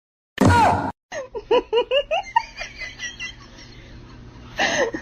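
A brief loud sound with a falling pitch about half a second in. Then laughter in a quick string of short syllables, about four or five a second, which dies down and starts up again near the end.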